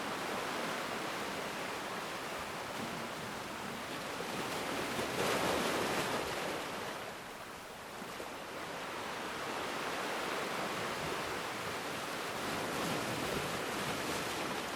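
Ocean waves breaking and washing on a shore, a steady rush of surf that swells to a louder break about five seconds in, eases off, then builds again.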